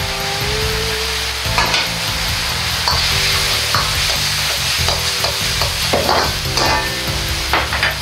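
Shrimp in chili sauce sizzling in an iron wok over a high gas flame, with a metal ladle stirring and scraping the wok in a few separate strokes.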